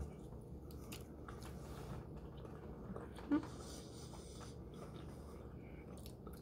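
Faint chewing of sauce-dipped chicken nuggets, with small mouth and handling noises and one short louder sound about three seconds in.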